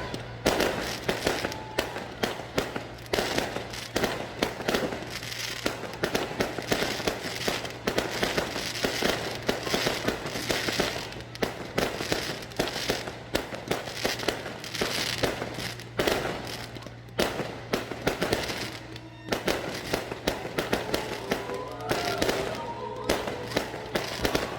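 Fireworks display finale: a continuous barrage of bangs and crackling from many shells bursting, several a second, with no break.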